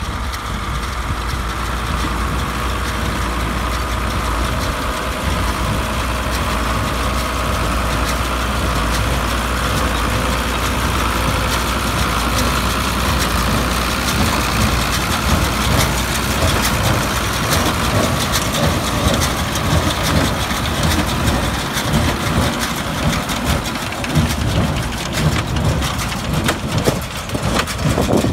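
Belarus 1221 tractor's six-cylinder diesel engine running steadily while it pulls a Kyrgyzstan small square baler, with the baler's plunger and feed mechanism clattering and knocking as it packs hay, the knocks more prominent in the second half.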